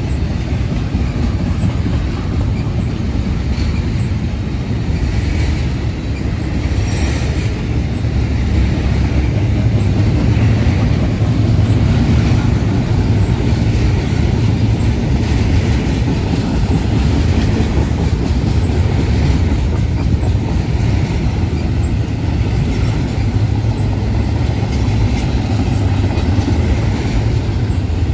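Union Pacific intermodal freight train rolling past: a loud, steady rumble of steel wheels on the rails.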